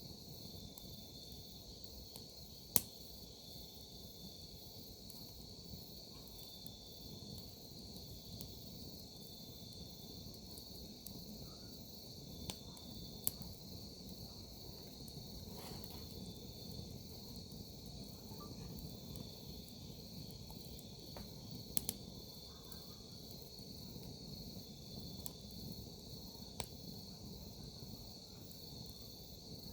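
Crickets and other field insects chirping steadily, with a wood campfire burning underneath; the firewood gives a few sharp crackling pops scattered through.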